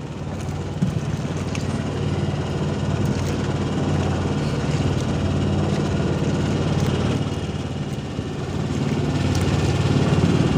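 Small 1,500-watt generator engine running steadily, powering the boat's fishing lights.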